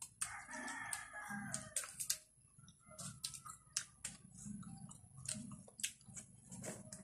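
A rooster crows once, a faint call of about two seconds starting just after the beginning. After it come scattered light clicks and crunches of rose apple being chewed and handled.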